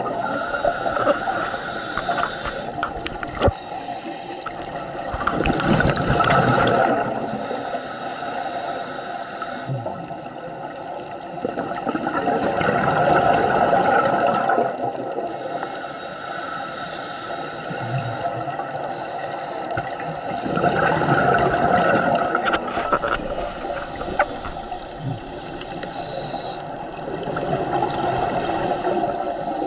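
Scuba diver breathing through a regulator underwater: a hissing inhale, then a longer, louder rush of bubbling exhaust. The cycle repeats about every seven to eight seconds.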